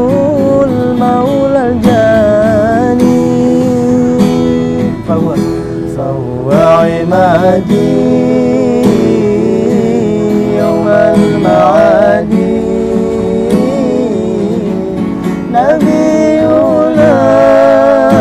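Singing with vibrato over strummed acoustic guitar.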